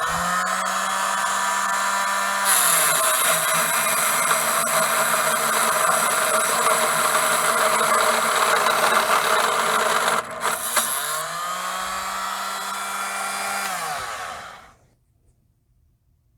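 Electric power tool cutting aluminium rod stock: the motor spins up and runs free, its pitch drops as the cut starts about two seconds in, with harsh metal-cutting noise. The cut breaks off about ten seconds in, the motor runs free again, then winds down and stops near the end.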